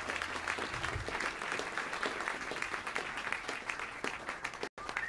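Audience applauding: a dense patter of many hands clapping, which cuts out for an instant near the end.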